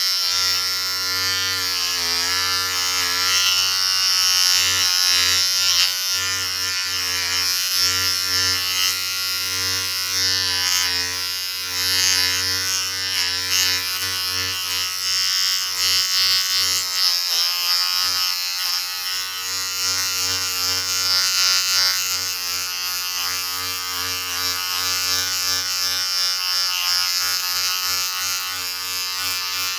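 Electric shaver or hair clipper running continuously, a steady buzz with a strong low hum and a bright high hiss, the pitch and level wavering slightly.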